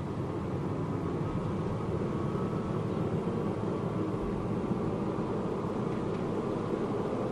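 Steady low rumble with a hiss over it from a ship under way at sea, the machinery and wind noise of the deck; no shots are fired.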